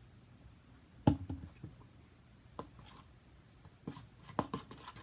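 A few sharp knocks and handling noises as things are picked up and set down, the loudest about a second in and a quick run of clicks near the end.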